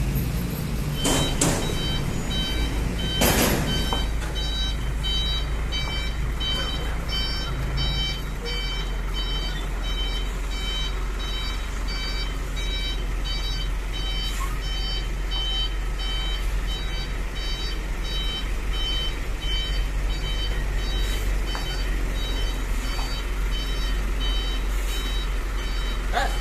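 Heavy flatbed truck's reversing alarm beeping repeatedly at an even pace over the low, steady running of its diesel engine. Two short hisses sound about one and three seconds in.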